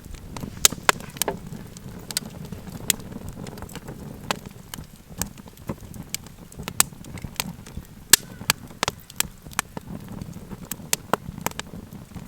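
Campfire crackling: irregular sharp pops and snaps from burning wood, a few a second, over a low steady rumble of flames.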